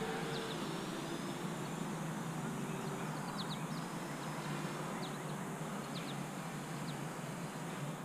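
Quiet open-air background: a steady soft hiss with a faint hum that fades over the first few seconds. Scattered short high chirps of small birds come through now and then.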